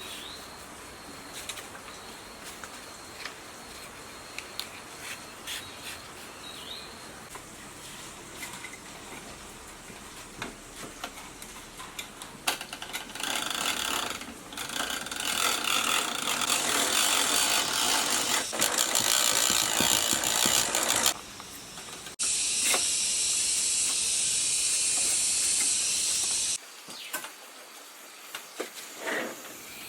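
Workshop repair sounds on a water pump motor. Light scattered clicks and taps of tools on metal parts come first. A loud, rough scouring noise follows for about eight seconds, then a steady high hiss for about four seconds that cuts off suddenly.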